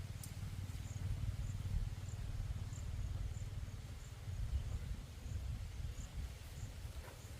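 Outdoor ambience: a steady low rumble, with a faint high chirp repeating about twice a second.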